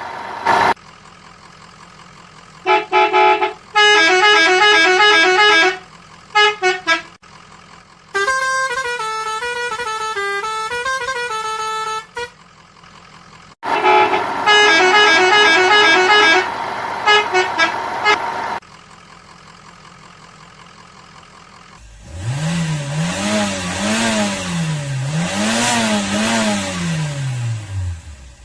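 Electronic toy-vehicle sound effects: several bursts of beeping horn tunes that step between fixed notes, then, near the end, a wailing siren-like tone that rises and falls several times.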